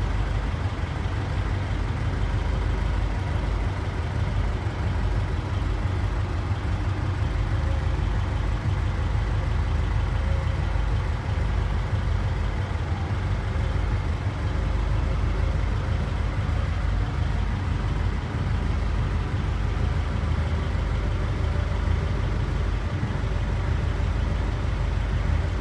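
Ford Model A's four-cylinder engine idling, a steady low rumble heard from inside the car.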